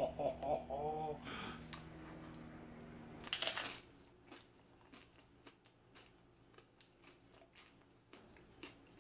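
A man makes a short pleased 'mmm' in the first second. About three and a half seconds in he bites into a slice of crusty, fresh-baked rustic bread with a loud crunch. He then chews with many small crunching clicks.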